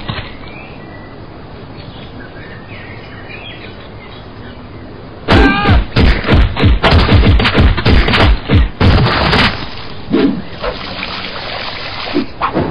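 Cartoon sound effects: faint birdsong ambience, then about five seconds in a rapid, loud series of heavy blows from a wooden picnic bench beating a body, with a brief cry at the start. The blows last about four seconds, and a few softer thuds follow.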